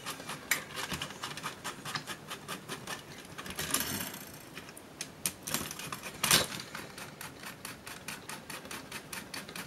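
Small clicks and taps of tools and metal parts being handled as a laptop's shielding is taken apart, with a brief scrape about four seconds in and a sharper knock about six seconds in.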